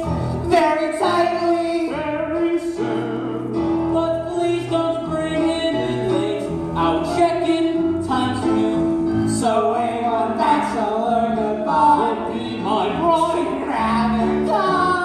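A stage-musical song: singing over a musical accompaniment, with held, changing notes and a steady beat.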